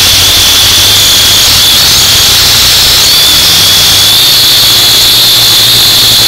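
U818A-1 quadcopter's motors and propellers running in flight, a loud steady high whine that wavers slightly in pitch, heard close up through the drone's own camera microphone.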